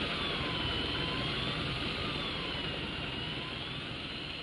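Electric fishing reel winding line in, its motor whine wavering slowly up and down as the load on the line changes, over a steady low rumble.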